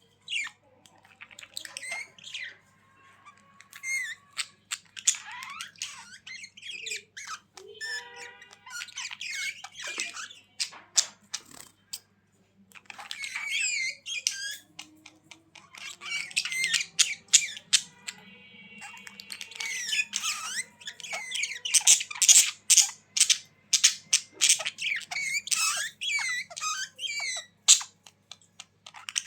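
Budgerigars chattering: quick chirps, squawks and warbling in bursts with short pauses, busiest in the second half.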